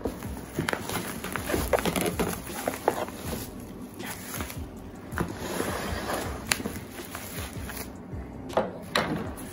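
Packaging being handled and unpacked: rustling with scattered crackles and clicks.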